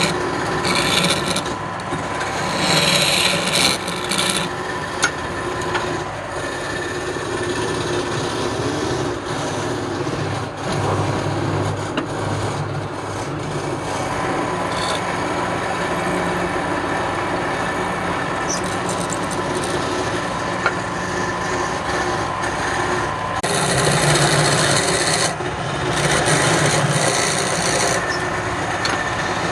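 Wood lathe running, with a turning tool scraping and cutting into the spinning wood over a steady motor hum. The cutting gets louder and harsher for a few seconds near the start and again about three-quarters of the way through.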